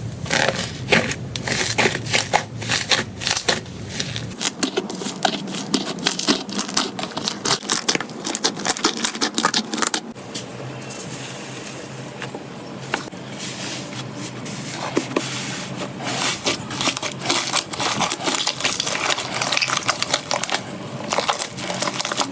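Slime being squeezed and poked, a dense run of crackling, popping clicks as air pockets in it burst.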